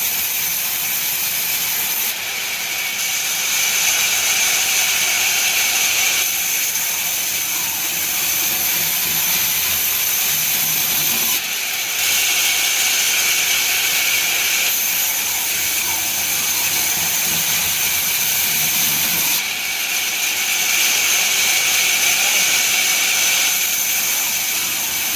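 Sawmill machinery running: a loud, steady, high hiss that changes abruptly in tone several times.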